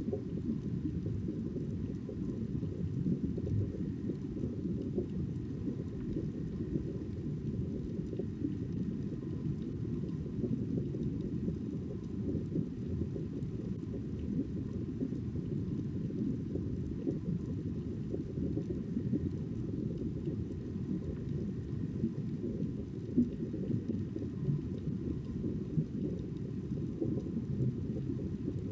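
Steady, muffled low rumble of underwater ambience, with nothing in the higher pitches and a couple of brief louder bumps past the middle.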